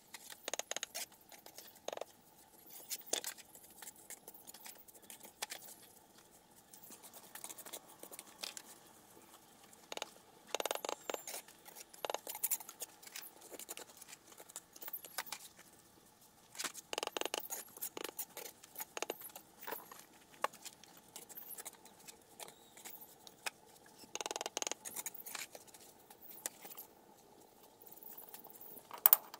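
Irregular clinks, taps and scrapes of small hard objects being handled, in scattered clusters, over a faint steady hum.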